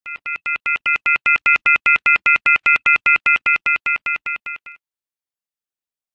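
Rapid electronic beeping, about five beeps a second, each beep a chord of high steady tones like a ringtone or dial tone. It swells up, then fades away and stops.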